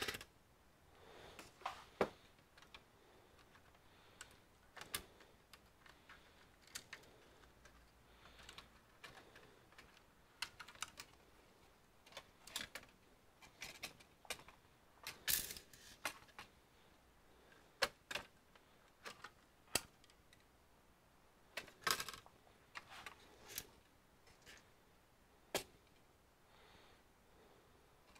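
Faint, irregular clicks and taps of small plastic and metal computer parts and tools being handled as an all-in-one PC is taken apart, with louder clusters about 15 seconds in and again about 22 seconds in.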